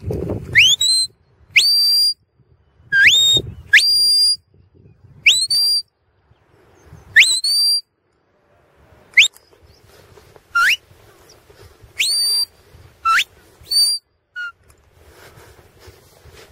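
A sheepdog handler whistling commands to a border collie working sheep: about a dozen sharp, upward-sweeping notes that level off at a high pitch. Some are short and some are held for about half a second, given in ones and twos with pauses between.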